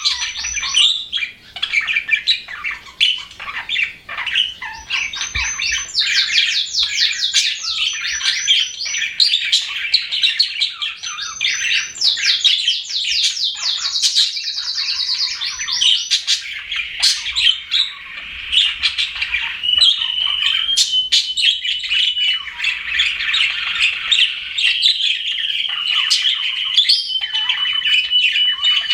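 Budgerigars chirping and warbling without a break, with fast rattling trills and, in the second half, a few short held whistles.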